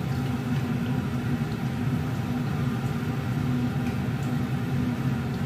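Kitchen range hood extractor fan running with a steady low hum, with a few faint light clicks over it.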